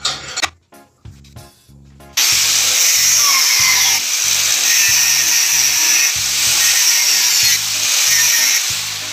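Angle grinder with a cutting disc cutting into a steel bar clamped in a bench vise, a loud high-pitched whine and hiss that starts about two seconds in and tails off near the end. The cut is a notch made so the bar can be bent.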